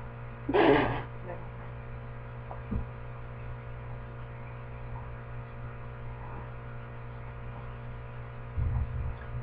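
Steady low electrical hum, with one brief louder sound about half a second in, a faint tap near the three-second mark and a low rumble shortly before the end.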